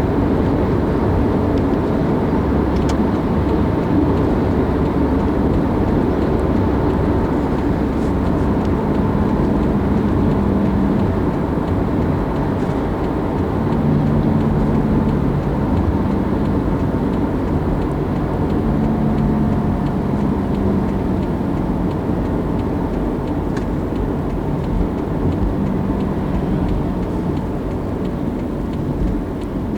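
A car being driven: a steady low rumble of engine and tyre noise, with the engine note shifting in pitch now and then.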